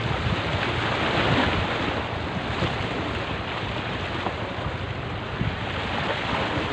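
Small sea waves splashing and washing against the rocks at the foot of a seawall, with wind buffeting the microphone.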